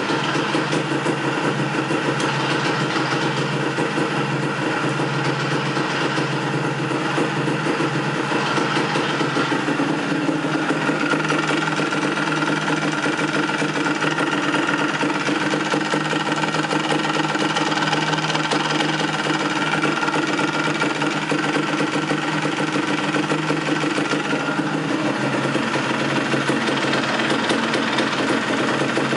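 Yamaha DT 180's single-cylinder two-stroke engine idling steadily, with a rapid metallic rattle running through it. This is the strange noise heard with the bike standing, which eases when the clutch is pulled in; the owner has not cured it by replacing a wobbling clutch basket and it began after the rebuild with a new CKR crankshaft.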